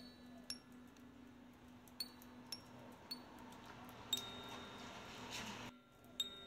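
Water dripping from a porch roof edge: single drops land irregularly with sharp, briefly ringing ticks, about seven of them, over a faint steady hum. A soft hiss swells about four seconds in and cuts off suddenly near the end.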